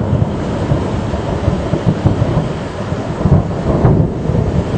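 Thunder rumbling over steady rain. The rumble swells just as it begins and keeps rolling in repeated surges.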